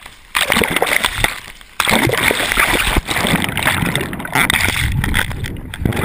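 Surf water splashing and sloshing around a wrist-mounted GoPro as it dips in and out of the waves, with two short muffled lulls in the first two seconds.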